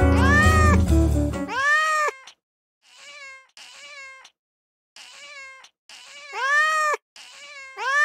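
A cat meowing over and over, each meow rising and falling in pitch. A music track plays under the first meows and stops about a second and a half in; the meows go on alone, some much fainter than others.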